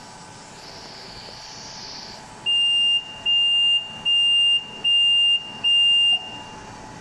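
Electronic buzzer of a ZM-R730A BGA rework station sounding five high-pitched beeps, each about half a second long and evenly spaced, over a steady machine hum.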